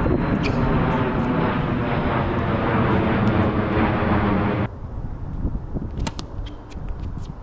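A loud, steady engine drone that cuts off abruptly about two-thirds of the way in. After it come quieter surroundings with a few sharp taps.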